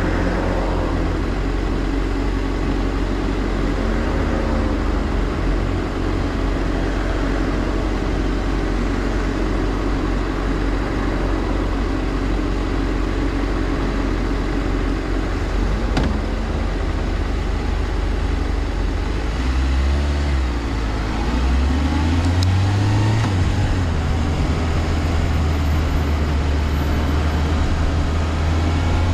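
Suzuki GSR400 inline-four engine running steadily during a ride, with wind and road noise; about two-thirds through, the engine note drops and then climbs again as the throttle is let off and opened.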